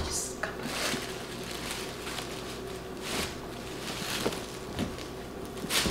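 White wrapping being handled and unfolded while a package is unpacked from a cardboard box: a series of short rustles, several in a few seconds.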